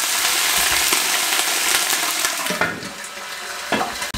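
Hot ghee sizzling and spattering as a few sips of water are poured in over browned onions and whole spices; the hiss dies down after about two and a half seconds. A light clink near the end as the glass lid goes on the pan.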